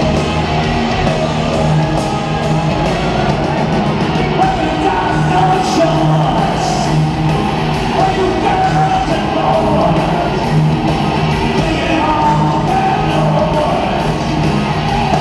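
Live hard rock band playing, with singing and shouted vocals over guitars and drums.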